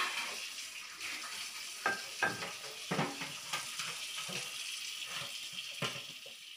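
Kitchen sink tap running in a steady hiss while dishes and utensils knock and clink now and then; the water sound thins out near the end.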